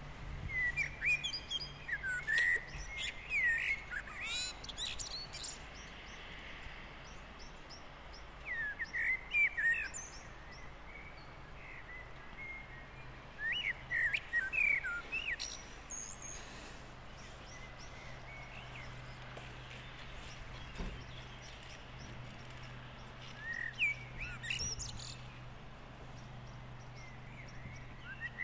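A songbird singing short whistled phrases in bursts several seconds apart, about four or five of them, over faint steady outdoor background noise.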